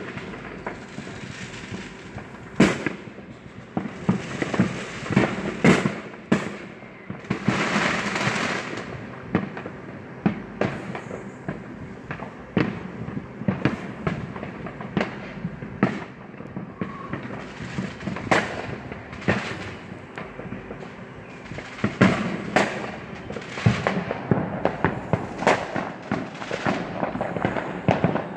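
Consumer fireworks going off all around: an almost constant string of bangs and pops, some loud and close, others distant, with a longer hissing crackle about eight seconds in.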